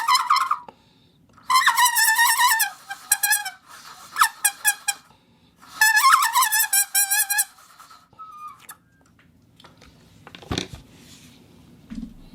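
Foley 'animal speech' sound effect: high, squeaky, wavering tones in chattering phrases, three longer ones and a run of short pips in the first seven and a half seconds. A single knock follows about ten and a half seconds in.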